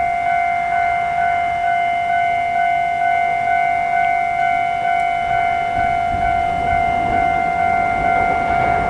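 Japanese railway level-crossing warning bell ringing steadily, the kan-kan chime repeating about twice a second. Near the end a train's low rumble builds beneath it as the train approaches.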